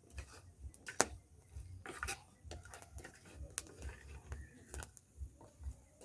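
Irregular sharp knocks and clicks of kitchen utensils during food preparation, the loudest about a second in, over a faint low rumble.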